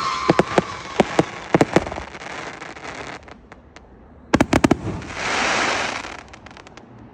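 Consumer fireworks cake firing: a run of sharp bangs through the first two seconds, a quick cluster of bangs about four seconds in, then a hissing crackle for about a second that tails off into scattered faint pops.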